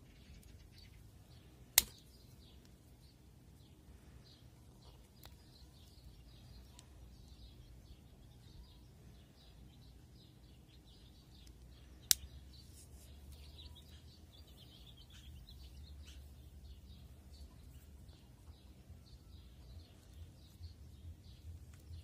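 Victorinox Ranger Swiss Army knife tools snapping shut: two sharp metal clicks, about two seconds in and again about halfway through. Faint birdsong chirps throughout.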